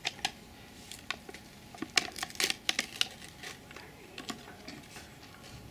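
Pringles crisps crackling and rustling in their tube as a chip is picked out by hand, with a dense run of sharp crinkles about two to three seconds in.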